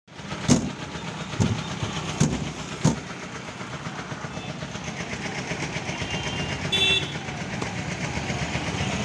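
A machete chops into a green coconut on a wooden block, four sharp strikes in the first three seconds. Steady road traffic runs underneath and slowly grows louder.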